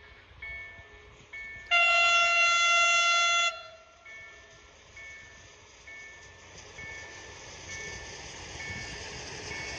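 A level-crossing warning signal beeps in a repeating tone pattern about once a second. About two seconds in, a PLK WMB-10 rail vehicle sounds one loud horn blast lasting nearly two seconds, its warning signal at the Rp1 sign. Its running noise then grows steadily louder as it approaches the crossing.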